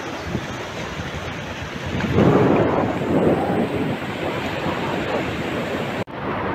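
Beach ambience: wind rumbling on the microphone over the wash of surf, with a louder rush about two seconds in and a momentary break in the sound near the end.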